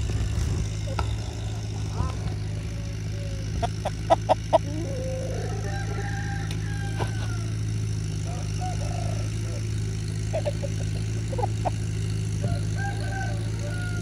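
Rooster giving short, low clucking calls a few times over a steady low hum. A quick run of sharp taps about four seconds in is the loudest sound.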